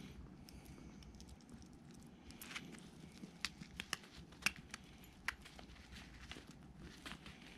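A pet hedgehog at its dish of mealworms: faint rustling with a scattering of sharp little clicks in the middle few seconds.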